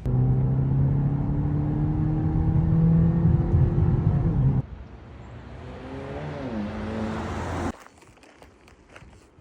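Car engine running under acceleration, its pitch rising slowly, then cutting off abruptly about four and a half seconds in. A quieter engine passage follows, its pitch dipping and levelling off, until it too cuts off near the end, leaving faint noise.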